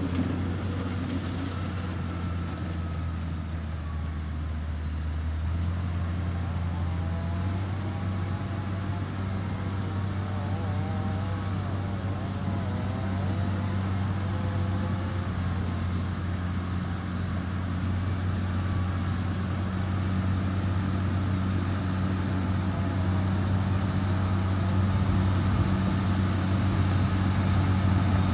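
Motor grader's diesel engine running steadily. Its pitch steps up slightly about five seconds in, and it grows a little louder toward the end.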